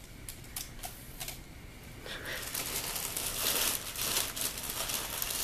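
Plastic poly mailer envelope crinkling as it is handled and pulled open. A few light clicks at first, then dense crinkling from about two seconds in.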